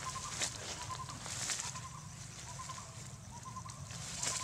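Brief rustles of leaves and grass as two baby monkeys scuffle on the ground, with a steady background of short, high chirps at one pitch repeating about twice a second.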